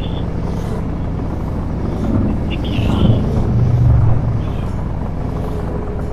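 Motorcycle engine running steadily at low revs while riding, with wind and road noise; it swells louder between about two and four seconds in.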